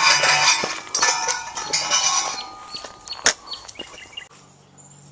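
Metal turnstile squeaking and rattling as it is pushed round, with clicks and a sharp clack about three seconds in; after that it goes quieter.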